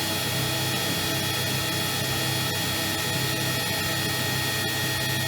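CNC machining center running its automatic program while cutting a slab saw carriage, a steady hum with constant high-pitched whines from the spindle and machine.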